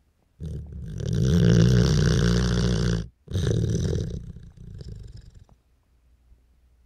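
A dog snoring: one long, loud snore of about two and a half seconds, then after a brief break a second one that fades away.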